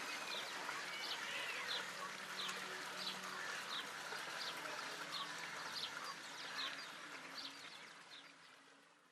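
Birds calling: a short high chirp repeated about every two-thirds of a second over the chatter of other birds, fading out near the end.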